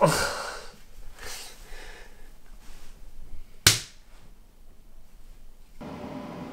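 A few soft, heavy breaths, then about three and a half seconds in a single sharp slap of a hand on a bare, full belly.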